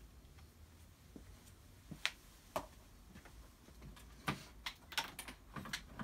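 Faint, scattered light clicks and taps, about ten of them with the densest run in the second half, from small objects being handled by hand.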